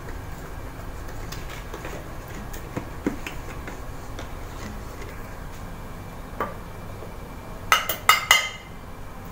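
A measuring cup scooping flour from a container, with soft scrapes and light taps, then a few sharp knocks about eight seconds in as the cup is tipped and knocked against the blender jar to empty the flour.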